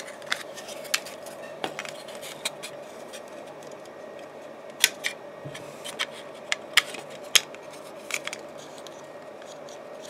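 Scattered small clicks and taps of an LG TV remote control's plastic case and circuit board being handled and fitted back together, about a dozen irregular clicks over a steady background hum.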